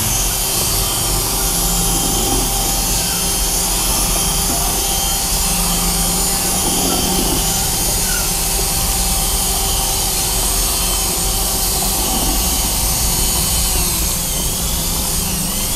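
Electric hand drill fitted with a mixing paddle in place of a bit, running steadily as it whips a thick flour batter smooth.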